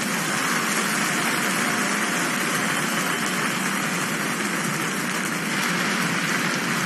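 Large arena crowd applauding and cheering after a vault, a steady wash of noise.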